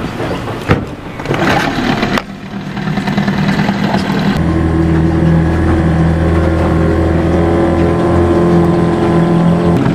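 Small Mariner outboard motor being started: a sharp knock under a second in, then the engine catches about two seconds in and runs at idle. From about four seconds in it runs steadily with a deeper, fuller note.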